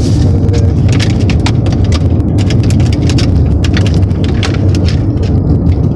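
Plastic Beyblade packaging crinkling and crackling as it is handled and pulled open, in many quick, irregular clicks and rustles, over a steady low rumble inside the car.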